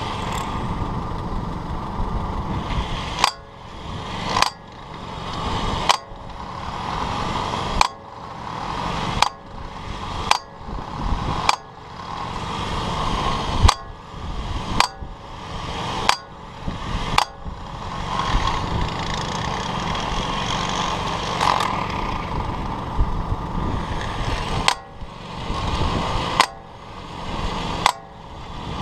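Cordless impact wrenches hammering on wheel nuts in repeated bursts, each burst starting sharply after a brief drop, roughly every one to two seconds, with a longer unbroken stretch about two-thirds of the way through.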